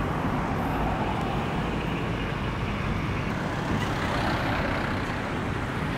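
Steady noise of road traffic from vehicles passing on the street, swelling slightly about four seconds in.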